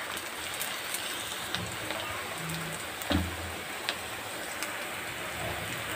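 Onions, curry leaves and green chillies sizzling in hot oil in a kadai while being sautéed to brown: a steady crackling hiss with scattered small pops. A brief low thump about three seconds in.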